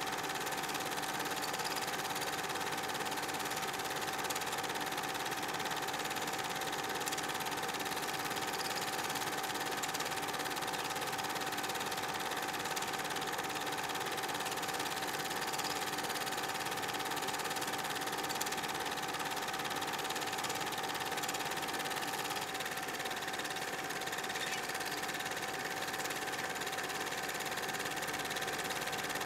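8 mm film projector running: a steady mechanical whirr and rattle with a constant whine, unchanged throughout.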